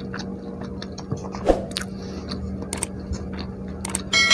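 Close-up chewing of home-made egg martabak: soft wet clicks and small crunches over a steady low hum. Near the end there is a single sharp ringing clink that dies away slowly.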